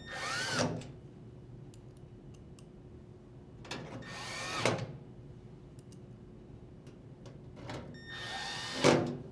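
Drill driver with a Phillips bit running screws into a washer's rear cover: three short runs about four seconds apart, the motor's pitch rising and then falling on each.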